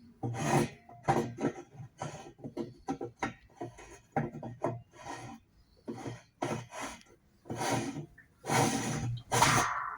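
Irregular knocks and scrapes of metal parts being handled and fitted on a top-load washing machine, two or three a second, as the basket's hub nut is put on and worked. There is a louder cluster of scraping near the end.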